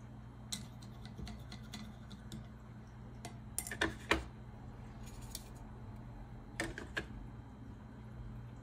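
Handling of watercolour painting tools: scattered light clicks and taps, with the loudest a close pair of clacks about four seconds in and another pair about seven seconds in, over a low steady hum.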